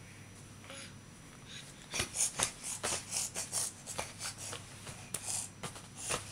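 A baby making a run of short, breathy huffs, irregular, about two or three a second, starting about two seconds in.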